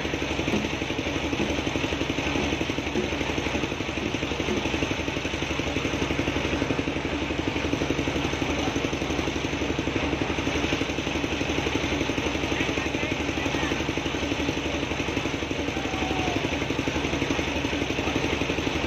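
Engine of a homemade sawmill running steadily at idle with a fast, even beat, the saw unloaded while no log is being cut.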